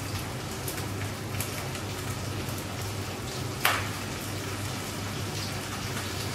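Food frying in hot oil in a pot on a gas stove, a steady crackling sizzle over a low hum. A sharp clink a little past halfway, a spatula striking the pot.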